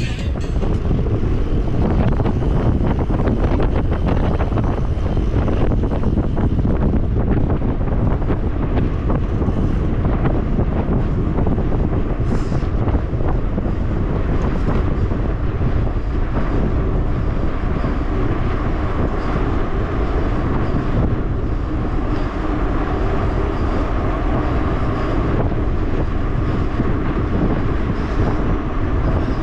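Steady wind buffeting on a bike-mounted camera's microphone while riding a mountain bike at speed on a paved road, with tyre and road noise underneath. There is no clear single event, just a continuous low rumble.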